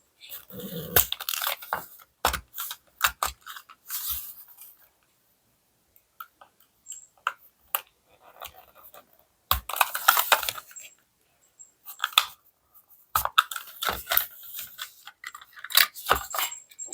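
Toy car packaging being handled and opened: crinkling plastic and card, tearing and sharp clicks in bursts, with short quiet pauses between them, the longest about five seconds in.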